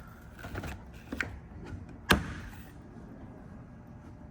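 Light mechanical clicks, then one sharp clack about two seconds in, from a Taco GS-300 outrigger mount's single handle being flipped over to switch the mount from height adjustment to swing adjustment.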